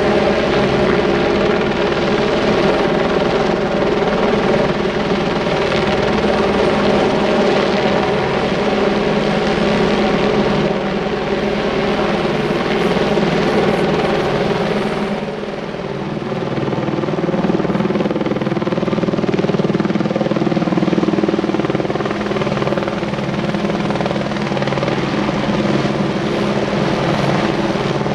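A helicopter flying, a steady drone of engine and rotor that dips briefly about halfway through.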